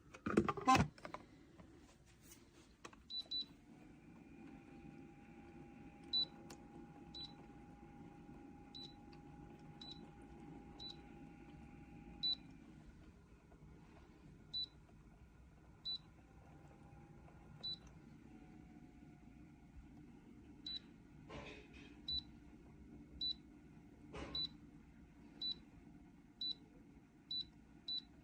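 Short, high electronic beeps, all at the same pitch, sounding about once a second at irregular spacing, with a single thump about half a second in.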